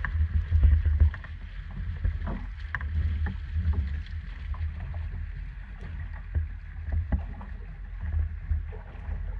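Boat engine idling with a low, steady rumble.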